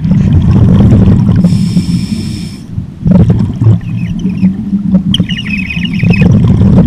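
Storm Whistle blown underwater by a scuba diver: a high steady whistle tone about a second and a half in, then a warbling whistle tone near five seconds. Both ring over a heavy low rumble of the diver's exhaust bubbles.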